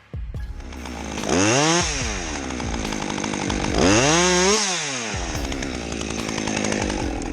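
Two-stroke chainsaw revved up twice, its pitch climbing and falling back each time, about a second and a half in and again around four seconds, then running steadily at speed.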